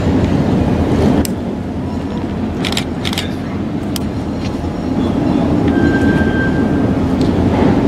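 Providence & Worcester diesel locomotive's engine rumbling as it moves slowly, with several sharp clicks and clanks in the first half and a brief high squeal about six seconds in.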